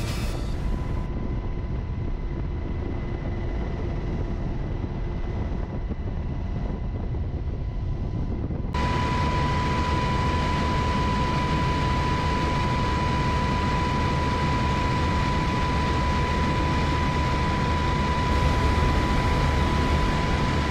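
UH-60 Black Hawk helicopter in flight, heard from inside the cabin: a steady low drone with a thin, steady high whine running through it. About nine seconds in the sound steps up, the whine growing louder.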